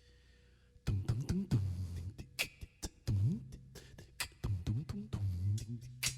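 Bass and percussion start playing about a second in: deep bass notes that slide up and down in pitch, under sharp percussive hits.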